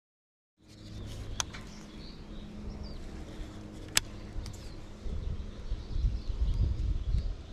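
Outdoor ambience with a steady low hum. Two sharp clicks come about a second and a half and four seconds in as a baitcasting reel is handled. From about five seconds in, an uneven low rumble buffets the microphone and is the loudest sound.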